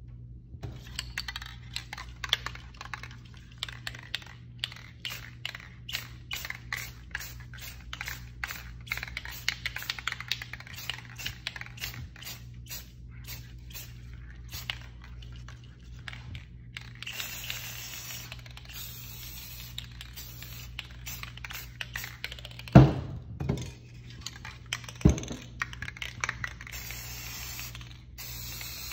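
Aerosol spray paint can shaken, its mixing ball rattling in quick clicks for most of the first half, then several short bursts of spray hiss as paint is sprayed. Two loud knocks come about three-quarters through, followed by more spray bursts near the end.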